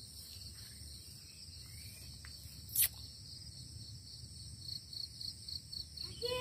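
Steady high-pitched chorus of crickets and other insects, with a pulsing trill of about five beats a second joining about halfway. A single sharp click is heard a little under three seconds in, the loudest sound here.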